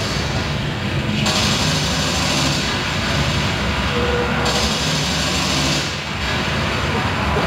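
Loud recorded battle sound effects played over a sound system for the scene: a dense, noisy roar whose high hiss cuts in and out.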